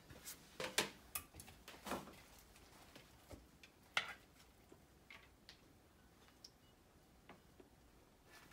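Sparse light clicks and knocks of kitchen handling: a wooden cutting board being handled, then a utensil tapping a glass bowl, with the sharpest click about four seconds in.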